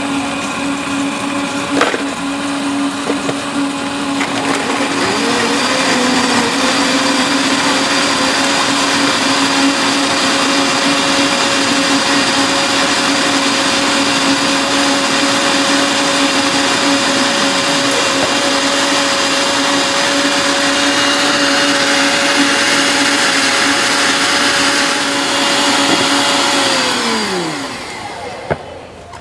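Two high-speed countertop blenders running together, blending watermelon and mixed fruit into juice. One is already running; a second starts about five seconds in and rises to a higher, steady whine. Both wind down together near the end, their pitch falling as they stop.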